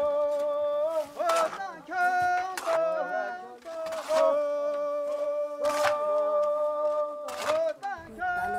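A single voice singing unaccompanied in long held notes, the pitch stepping slightly between phrases, with short breaks every second or two.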